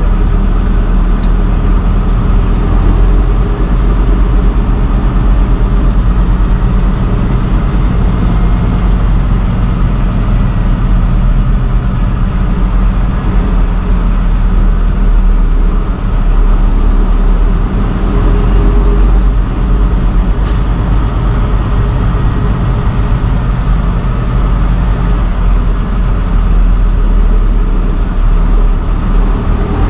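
Steady engine drone and road noise heard from inside a truck cab cruising at highway speed, with a few faint clicks, once about a second in and once about two-thirds of the way through.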